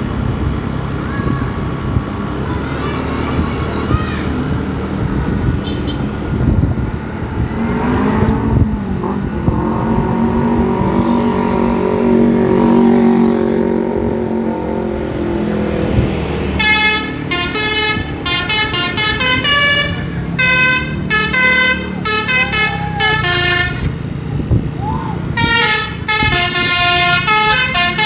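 Bus engine running, then from about halfway on a Basuri 'telolet' musical bus horn playing a quick tune of short notes that change pitch.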